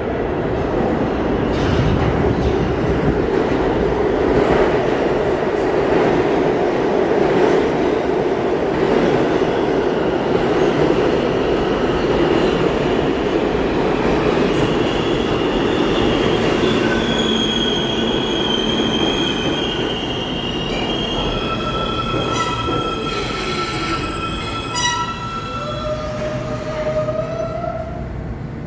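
R160A subway train arriving at a station platform. At first there is a loud, steady rumble of wheels on the rails. From about halfway in, as it brakes, several high-pitched steady tones and squeals rise over the rumble, and they fade as the train comes to a stop near the end.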